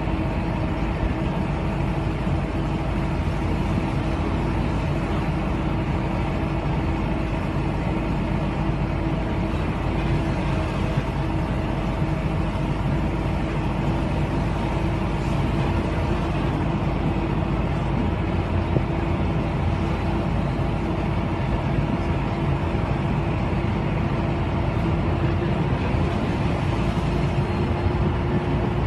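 Steady vehicle noise: a motor's constant hum over a continuous rumble of road and wind noise, unchanging throughout.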